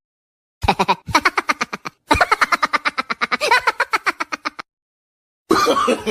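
Laughing sound effect: a fast, staccato 'ha-ha-ha' laugh of about seven beats a second, in three runs with short breaks, stopping abruptly. A voice starts near the end.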